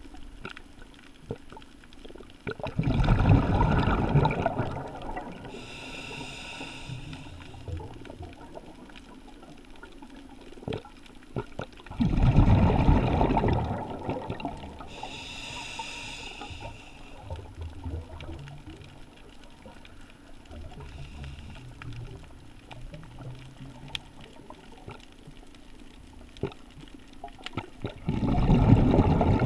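A scuba diver breathing through a regulator, picked up by the underwater camera. Three loud rumbling gushes of exhaled bubbles come several seconds apart, with two softer hisses of air drawn through the regulator in between.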